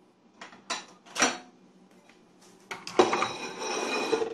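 Dishes clinking and clattering as a plate is fetched: a few separate sharp knocks in the first second and a half, then a denser rattle of clattering crockery with a ringing edge over the last second or so.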